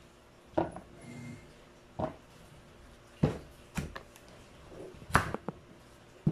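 Kitchen knife chopping squash on a wooden cutting board: about eight sharp, irregular knocks of the blade striking the board.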